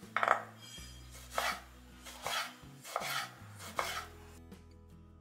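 Chef's knife slicing through a tomato on a wooden cutting board, the blade knocking the board about five times at uneven intervals, stopping a little after four seconds in.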